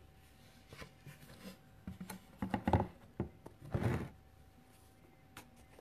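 Handling noises from craft supplies, a stencil sheet and paste jars, being moved about: a string of rustles, taps and knocks, loudest in the middle, then it settles.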